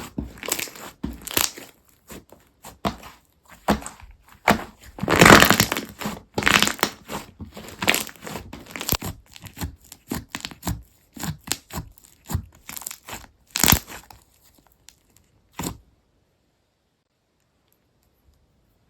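Hands squeezing, stretching and poking a slime, giving irregular crackling pops and crunchy clicks that stop a few seconds before the end.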